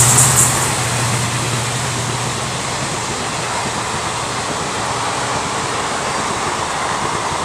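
Passenger train coaches running past at speed on the nearest track: a steady rushing rumble of wheels on rail. The louder sound of the passing locomotive fades during the first second.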